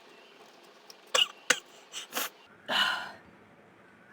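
A woman's breath and throat noises while she tickles her nose with rolled paper to bring on a sneeze that does not come: two sharp bursts about a second in, two softer ones, then a longer breathy one near the end.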